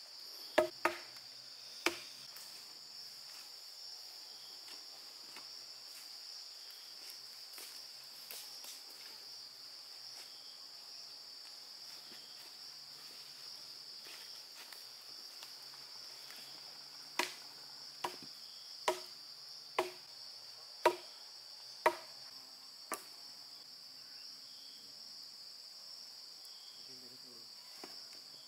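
A steady, high-pitched insect chorus, broken by sharp knocks: three near the start, then a run of seven about a second apart past the middle, like strikes of a tool on wood.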